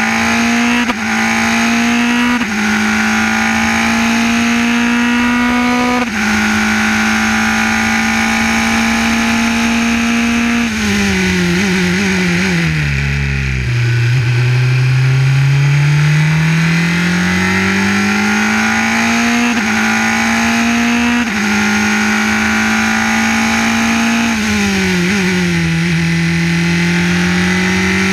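Formula 3 racing car's four-cylinder engine heard onboard at racing speed. It pulls hard through the gears with quick upshifts, then drops through a series of downshifts under braking to low revs about halfway through. It climbs again with further upshifts out of the corner, with one more short downshift near the end.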